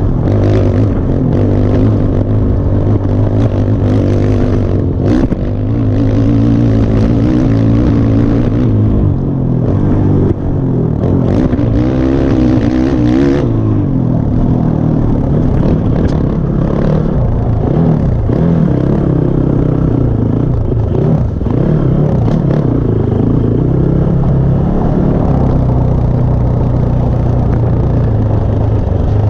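Motocross bike engine, heard onboard, revving up and dropping back as the rider works the throttle around the dirt track. A few sharp knocks come through, notably around five seconds in and again near the middle.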